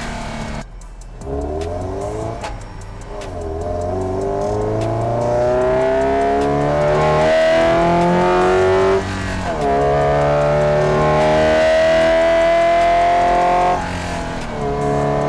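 Induction sound of a Subaru BRZ's 2.4-litre FA24D flat-four breathing through an open-pod cold air intake, picked up under the hood. The car accelerates hard: the engine note climbs in long rising sweeps and falls back sharply twice, about 9 and 14 seconds in.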